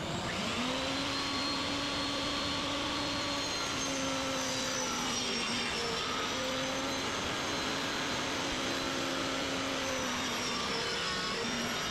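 A high-speed electric motor starts abruptly and runs steadily, its whine settling within the first second and dipping slightly a few times.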